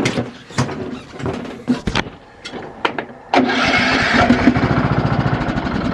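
A few clunks and clicks, then about three and a half seconds in the riding mower's small engine catches and runs steadily. It starts once its flywheel has been turned off the hard compression point. The owner puts the failure to crank on valves out of adjustment, which leave too much compression for the starter.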